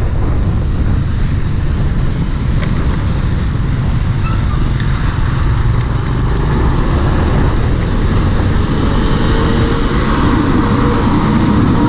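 Steady ride noise from a Yamaha Aerox 155 scooter moving in traffic: wind rushing over the microphone, mixed with the engine and passing traffic.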